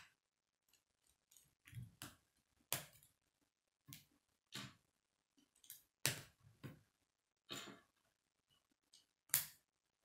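K'nex plastic rods and connectors clicking as they are snapped together and handled, a sharp click about once a second at an uneven pace. The loudest click comes near the end.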